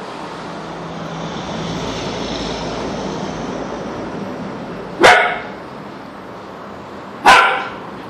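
Siberian husky puppy barking twice, two short loud barks about two seconds apart, over steady background noise.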